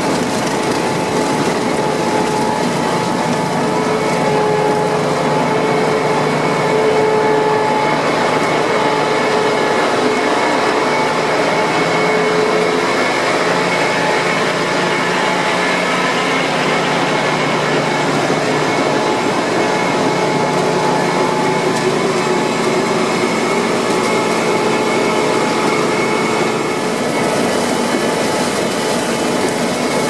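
Ploeger AR-4BX self-propelled potato harvester running while lifting potatoes: a steady mechanical din of its engine and conveyor webs, with a few faint steady whining tones.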